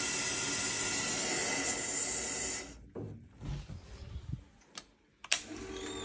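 Water hissing steadily through a valve on a combi boiler's pipework as the heating system is repressurised. It cuts off abruptly a little under three seconds in, followed by faint knocks and one sharp click about five seconds in.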